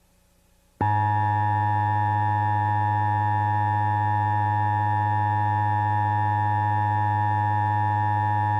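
Near silence, then about a second in an emergency alert attention tone starts: a loud, steady, buzzy electronic tone held without any change in pitch.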